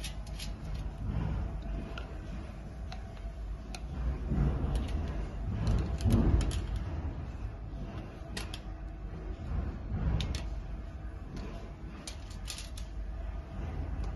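Hand tools working on a gold-plated iron frame: scattered small metallic clicks and taps in little clusters as a screwdriver drives a screw with pliers holding it, with handling knocks, the loudest about six seconds in.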